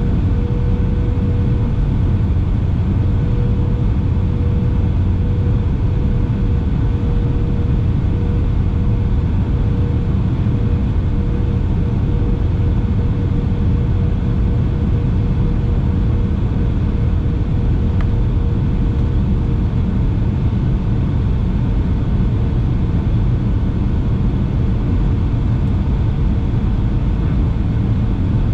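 Steady cabin rumble of a Boeing 757-300 on final approach, heard from a window seat over the wing: engine and airflow noise, with a steady humming tone that fades away about twenty seconds in.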